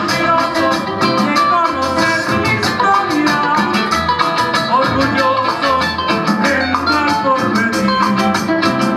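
Live band playing upbeat Latin American music, with drum kit, electric bass, keyboard and guitar, and a steady driving beat.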